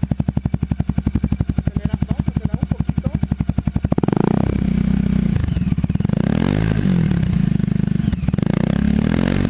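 Italika Vort-X 300R motorcycle engine idling with a smooth, even pulse. From about four seconds in it is revved in several throttle blips through its sport exhaust, the pitch rising and falling each time.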